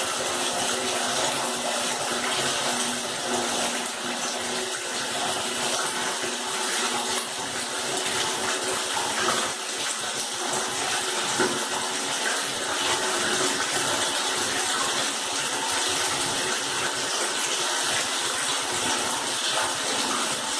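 Water running steadily from a tap, an even rushing splash with a faint low hum beneath it.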